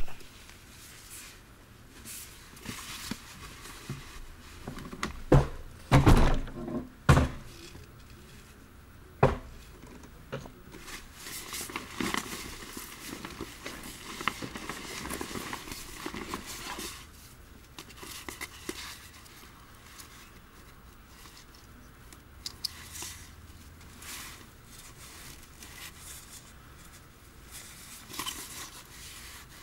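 Handling noise close to a motorcycle-mounted action camera: scattered knocks and thumps with rubbing. The loudest knocks come about five to seven seconds in and again at nine, and no steady engine sound is heard.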